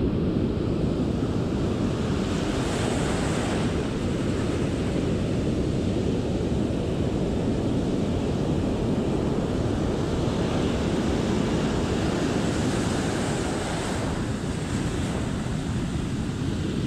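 Ocean surf breaking and washing in, a steady rush with the hiss of the wash swelling twice, heard with wind buffeting the microphone.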